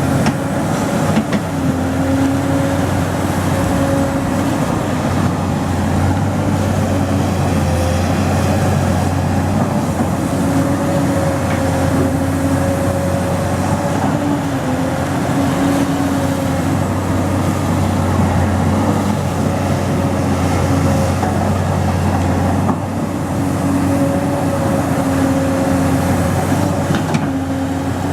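A large engine running steadily under varying load, its tone wavering slightly, with a brief drop in level about three-quarters of the way through.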